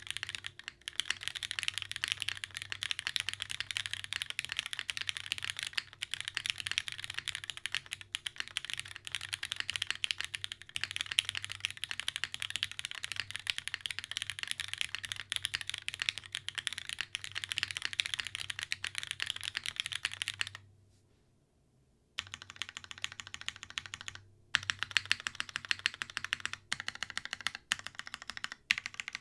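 Fast, continuous typing on a custom mechanical keyboard with lubed Cherry MX Black linear switches on an O-ring-mounted aluminium plate, capped with GMK keycaps. The typing stops for about a second and a half roughly two-thirds of the way through, then resumes with a few brief pauses.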